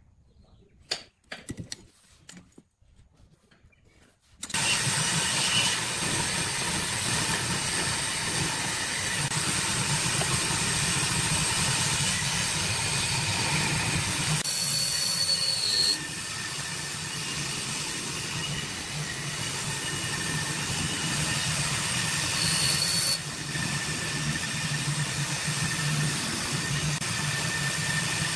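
A few faint taps and scrapes of a pencil marking wood along a steel ruler. About four seconds in, a benchtop hollow-chisel mortiser starts up and runs steadily with a low motor hum while its chisel and auger bore a square mortise into a pine board. The level steps down abruptly twice further on.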